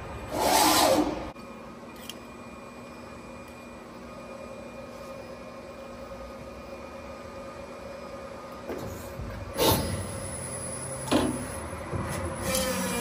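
CNC press brake running through a bend cycle on a small sheet-metal part: a short loud burst of noise about half a second in, then a steady machine hum with faint whining tones as the ram comes down, and a few short clunks in the last few seconds.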